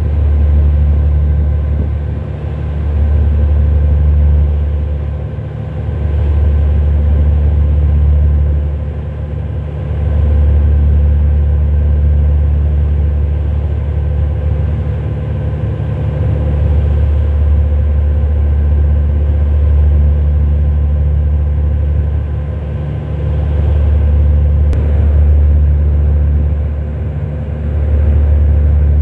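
Ship's engine running with a steady low drone and hum, swelling and easing every few seconds.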